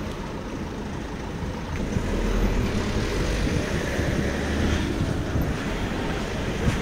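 Wind rumbling on the microphone and steady road noise while a city bicycle rides along a paved street, with no clear engine note.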